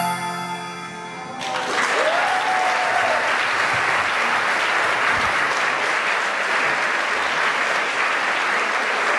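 The last chord of a Mexican salterio (hammered dulcimer) ensemble rings and fades, then the audience breaks into steady applause about a second and a half in. A brief rising whistle cuts through the clapping.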